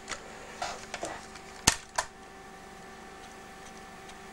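Plastic clicks and knocks as the cover of a small Panasonic cassette player is handled and snapped shut: five or so sharp clicks in the first two seconds, the loudest one about two thirds of the way through. A faint steady hum is heard after them.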